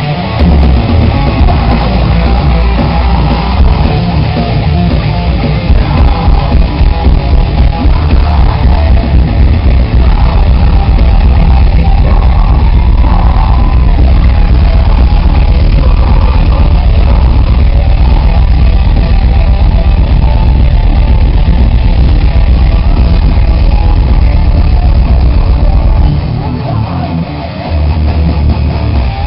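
Metalcore band playing live, heard from the crowd: loud electric guitars, bass and drums. The bass drops out briefly near the end, then the full band comes back in.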